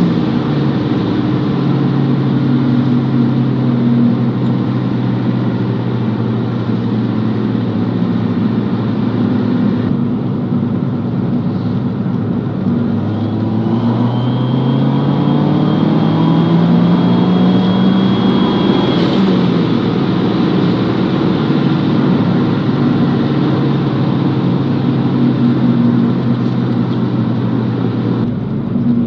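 Fiat 500 Abarth's 1.4-litre turbocharged four-cylinder engine running under way. About halfway the engine note climbs and a high, thin turbo whistle comes in with it, then cuts off a few seconds later before the engine settles back to a steady cruise.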